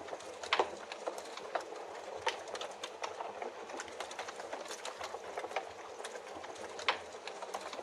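Steady rain hiss with a wood fire crackling over it: irregular sharp pops and snaps, the loudest about half a second in and near the end.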